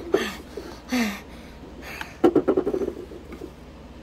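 Short non-word vocal sounds: a falling pitched sound about a second in, then a low, rapidly pulsing growl-like sound lasting about three quarters of a second, over light handling noise of plastic toys.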